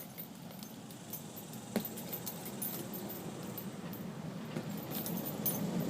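Light, scattered metallic clinking and jingling, with a steady low rumble underneath that grows louder toward the end.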